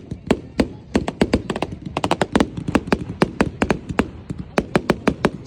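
Fireworks going off overhead in a rapid, irregular string of sharp bangs, several a second.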